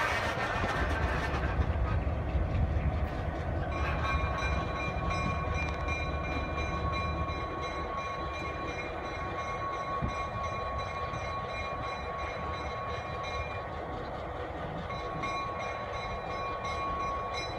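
Illinois Central diesel switcher locomotive running as it moves off along the track. Its low engine rumble eases after about seven seconds, and a steady high whine comes in about four seconds in.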